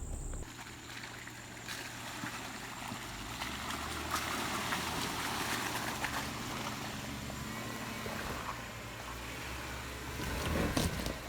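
Jeep Wrangler JKU's 3.6-litre V6 running steadily at low revs as it crawls up a steep, rocky climb, heard from some distance, with scattered crackles of tyres on rock and gravel.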